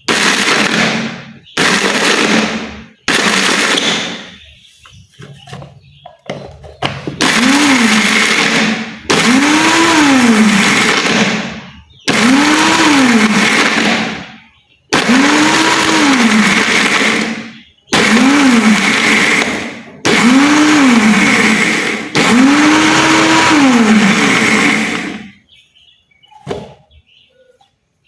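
Small blender grinder attachment run in about ten short pulses, grinding broken charcoal into powder; the motor's pitch rises and falls with each pulse, and it stops near the end.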